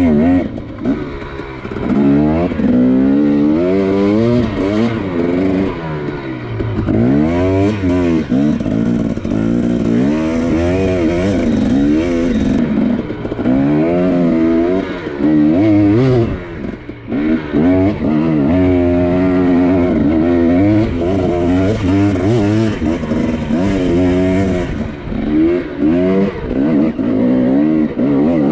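Dirt bike engine revving up and down again and again as the throttle is worked hard on a climb, with a few brief lulls.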